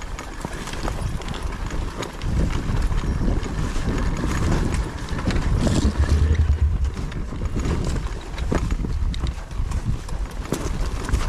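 Strong wind buffeting the microphone in surges, heaviest about six seconds in, with scattered knocks and clatter from a trail motorcycle rolling down a rocky, slippery water channel.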